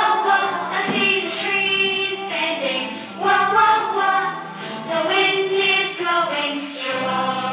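A children's phonics song for the letter W, with children's voices singing over music.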